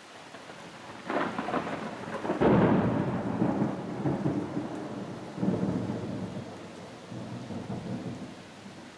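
Handling noise as the machined marlin spike's metal parts are picked up and fitted together on a cloth-covered table: irregular rustling and scraping surges, the loudest about two and a half seconds in.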